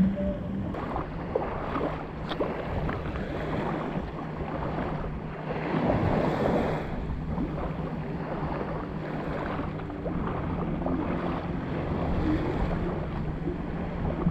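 Surf washing onto the beach with wind on the microphone, swelling louder about six seconds in, over a steady low hum.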